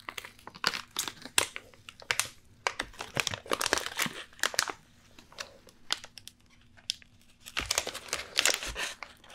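Crinkling and rustling of a plastic film lid and a paper napkin handled over a baby-food meal tray, in bursts with a quieter pause in the middle.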